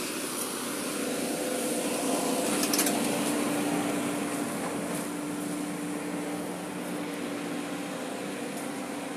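Tracked excavator's diesel engine running steadily at close range, a continuous mechanical drone that grows a little louder about two to three seconds in.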